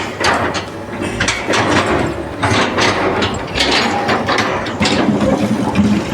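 Construction-site work noise: irregular clanks and knocks, several a second, over machinery running.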